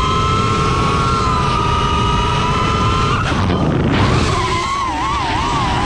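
FPV racing quadcopter's motors and propellers whining, several close high tones held steady, then breaking off about three seconds in and coming back warbling up and down as the throttle is worked, over a low rush of wind.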